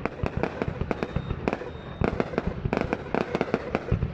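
Fireworks going off in rapid, overlapping bangs and pops. The bangs thin out briefly about a second in, then come thick and fast again.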